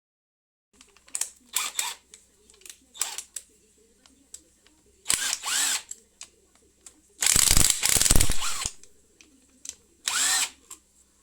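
Handheld power drill run in a series of short bursts, its motor rising in pitch as it spins up; the longest and loudest run comes about seven seconds in.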